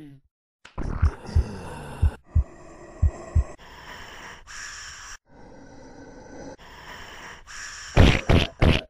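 Deliberately gross human noises from the nose and throat: snorting and wheezy, rasping breaths in separate gusts, with a run of loud short bursts near the end.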